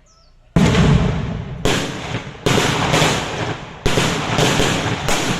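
A rapid series of about seven loud bangs over the last five seconds, each with a long echoing tail: the shots and blasts of simulated combat fire in a military drill.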